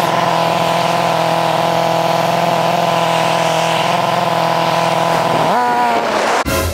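Sport motorcycle engine idling steadily, sped up and pitched high by fast-forward playback, then revving up in a rising pitch about five and a half seconds in as the bike pulls away. The engine sound cuts off abruptly near the end.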